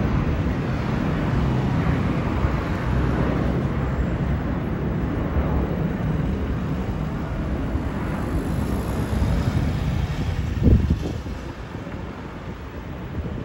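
Airbus A319-132's IAE V2500 turbofan engines heard overhead as a steady low rumble of jet noise that fades a little as the plane flies away. There is a brief low thump about ten seconds in.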